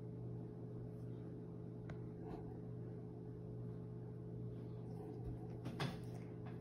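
Quiet room tone: a steady low hum with a few faint soft clicks, the clearest one near the end.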